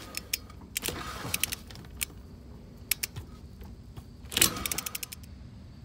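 Ratchet wrench clicking in quick runs as rusted lug nuts are worked loose, with a scraping noise under the clicks about a second in and again, loudest, about four and a half seconds in.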